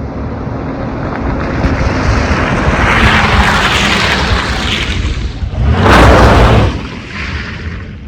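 Strong wind buffeting the microphone: a low rumbling rush that swells and fades, with a hard gust about six seconds in.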